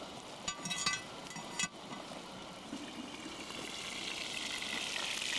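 Cast-iron camp oven lid being hooked with wire hooks and lifted off, with a few metal clinks and scrapes about a second in. Then the roast inside sizzles, getting steadily louder as the lid comes up.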